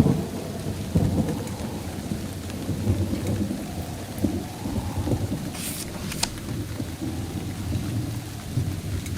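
Thunderstorm: thunder rumbling over steady rain, loudest at the start as a boom dies away, with a brief crackle about two-thirds of the way through.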